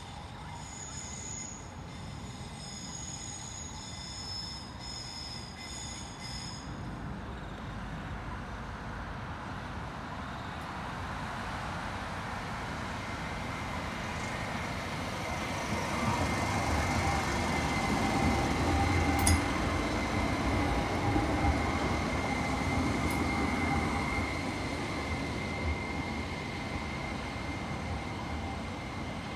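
A CAF Urbos 3 light rail tram running past: its sound grows from a faint rumble to a peak about two-thirds of the way through, then fades, with a steady high whine through the pass.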